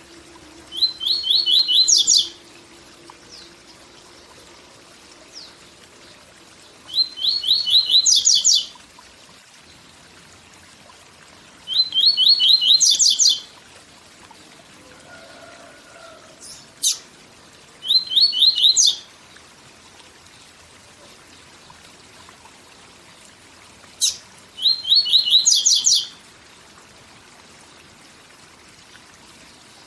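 Papa-capim (Sporophila seedeater) singing its 'tui tui zel zel' song: five phrases of quick repeated high notes, each about a second and a half long, with pauses of several seconds between them. A faint steady rush of waterfall water runs underneath.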